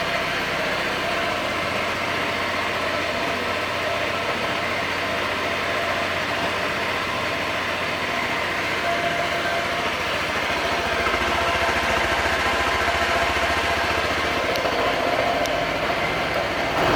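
Honda PCX150 scooter's 150 cc single-cylinder four-stroke engine idling steadily, a little louder in the second half.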